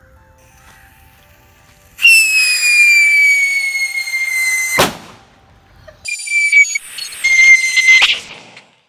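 Whistling firework rockets going off: a shrill whistle with a hiss, dropping slightly in pitch over about three seconds and cut off by a sharp crack, then a second whistle about a second later that also ends in a sharp crack.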